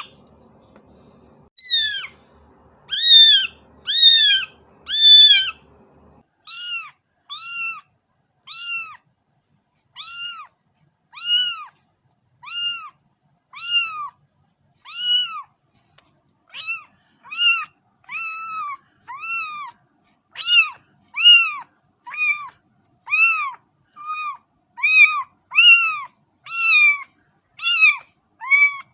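A cat meowing over and over: short calls that rise and fall in pitch, about one a second. They are loud for the first few seconds, softer through the middle, and loud again in the last third.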